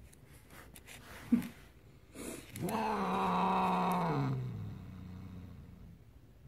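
Siamese cat calling: a brief call with a quickly falling pitch about a second in, then a long, low, drawn-out yowl that holds steady before sliding down in pitch and trailing off.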